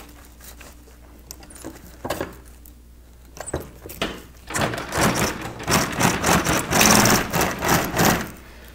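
Industrial sewing machine stitching a zipper strip onto boat canvas: a few light clicks, then the machine runs fast for about four seconds, starting about four and a half seconds in.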